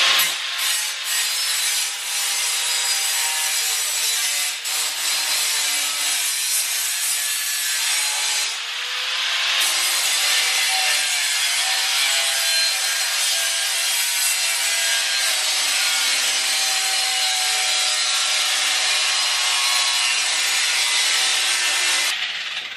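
Angle grinder with a cut-off wheel cutting through sheet metal: a continuous loud grinding screech with a whining motor tone that wavers with the load. It stops shortly before the end.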